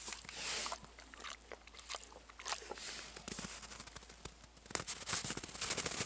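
Wild boar rooting and stepping in snow: irregular crunching and scraping, busier and louder near the end.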